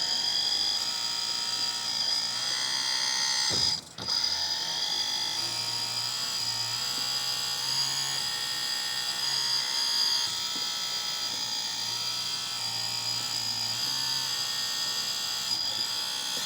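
Electric-driven hydraulic pump of a 1/14 scale RC hydraulic excavator whining steadily as the arm cylinders are worked, its pitch shifting in small steps as the load changes. The whine drops out briefly about four seconds in, then resumes.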